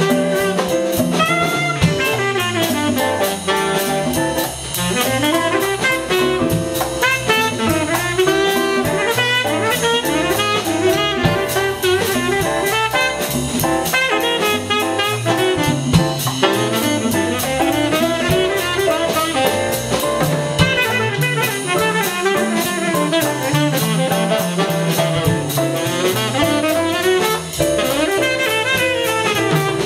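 Small jazz combo playing: a tenor saxophone plays quick, winding melodic runs over walking electric bass, piano and drum kit.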